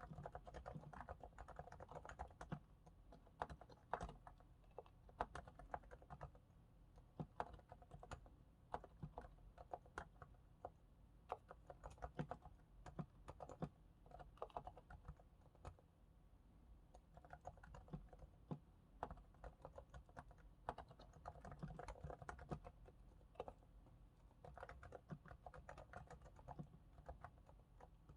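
Typing on a Realforce R2S keyboard with silent, 45 g equal-weight Topre electrostatic capacitive switches, lubricated with Krytox 105 on the sliders and Krytox 205 on the stabilizers: soft, muted keystrokes. Quick runs of keystrokes alternate with sparser, slightly louder single presses.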